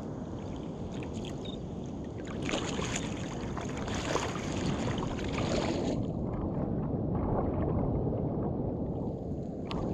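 Water sloshing and splashing against a kayak's hull over a steady low rumble of wind on the microphone. The splashing is busier from about two and a half to six seconds in.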